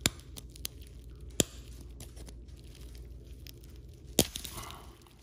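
Sharp plastic clicks and snaps as a flathead screwdriver pries at the locking tabs of a car mirror's plastic wiring connector: three loud clicks, one right at the start, one about a second and a half in and one about four seconds in, with small ticks between.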